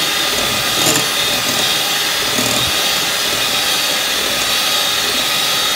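Electric hand mixer running steadily, its twin wire beaters whipping instant coffee, sugar and hot water in a glass bowl until it turns to foam.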